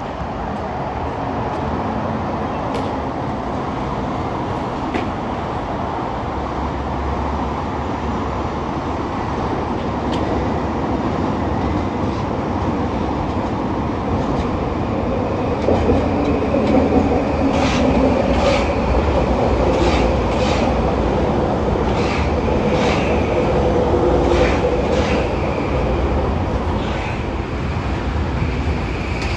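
SkyTrain Mark II train approaching and passing close by: a steady rumble that grows louder about halfway through, with a run of sharp clicks from the wheels on the track and a faint steady whine as the cars go by.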